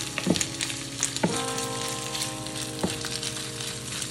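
Bracken fern stems (gosari) sizzling as they fry in a nonstick pan, stirred with a spatula that knocks and scrapes against the pan a few times.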